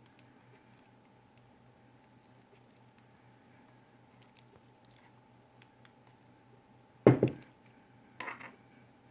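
Faint steady low mains hum, then a sharp, loud knock of hard parts about seven seconds in and a smaller clatter about a second later, as pieces of a soldering station's transformer and housing are handled.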